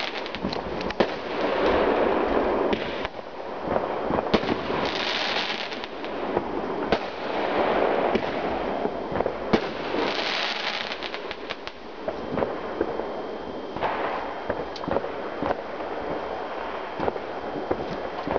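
Many fireworks and firecrackers going off together: a constant run of sharp bangs and pops, with surges of dense crackling from crackling shells bursting, the strongest about five and ten seconds in.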